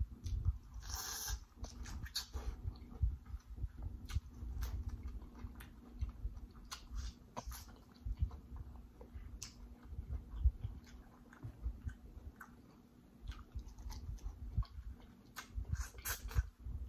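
Close-miked eating sounds of biting and chewing corn on the cob in sauce: irregular crunches and many short wet mouth clicks, over a faint steady hum.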